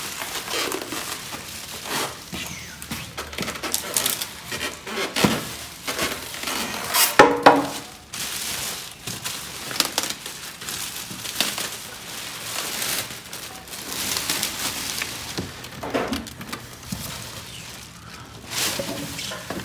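Clear plastic bag around a flat-screen TV crinkling and rustling in irregular bursts as it is handled, loudest about seven seconds in.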